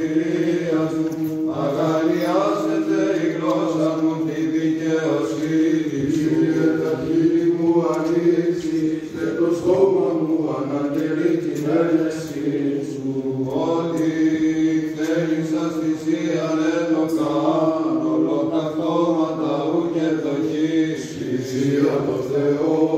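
Greek Orthodox Byzantine chant: a voice sings a winding melody over a steady held drone note (the ison).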